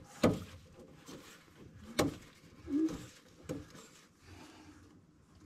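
Hand tools knocking and clanking on an air-cooled VW engine as it is turned over by hand to the next cylinder. There is a sharp clank just after the start, more knocks about two and three and a half seconds in, and a short squeak between them.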